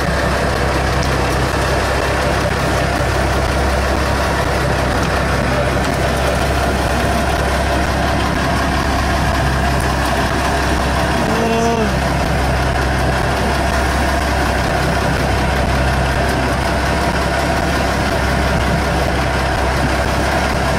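Fishing boat's engine idling, a steady low drone with an even hum that does not change.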